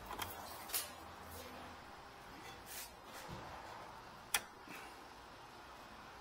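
Faint handling noises from a car's front end: a few scattered plastic clicks and knocks as a hand works the clips and hose fittings of the auxiliary radiator. The loudest is one sharp click a little over four seconds in.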